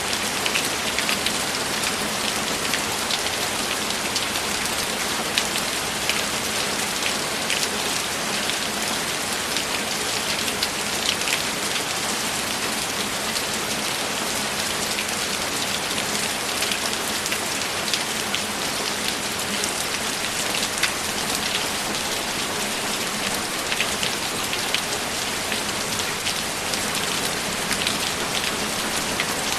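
Steady rainfall, an even hiss sprinkled with many small drop taps.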